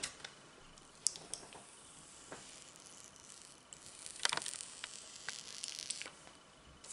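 Clear protective plastic film being peeled off a new iPhone 11: faint crinkling and rustling of thin plastic with scattered light clicks, busiest about four seconds in.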